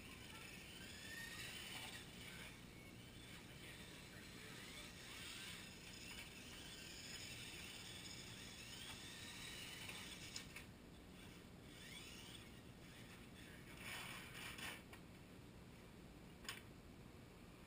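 Faint whine of radio-controlled cars' motors rising and falling as they drive, with a few sharp clicks in the second half.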